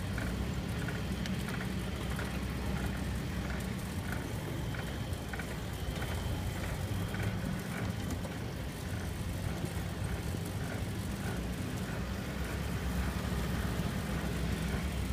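Steady rumble of tyre and wind noise from a bicycle rolling along a paved road, with a faint regular ticking about twice a second.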